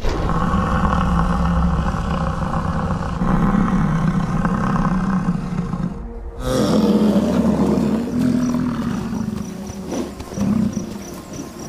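American bison bellowing: two long, low roars, the second starting after a brief break about six seconds in.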